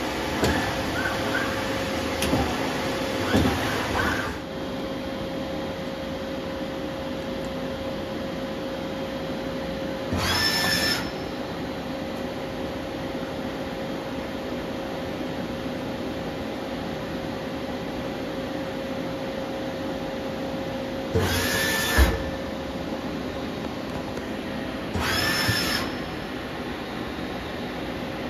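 Doosan Z290SMY CNC turn-mill running with a steady hum and a constant tone. It makes a busy stretch of short whines in the first few seconds. Three later axis moves, each about a second long, give a whine that rises and then holds, and a sharp clunk comes during the second of them.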